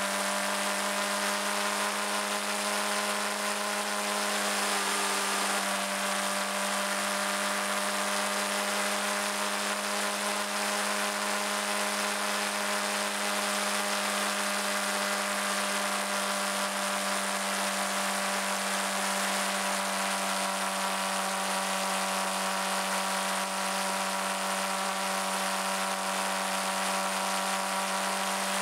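Suzuki GSX-R600's inline-four engine running at a steady cruise, a constant buzzing drone under wind and road noise. The pitch wavers briefly about five seconds in.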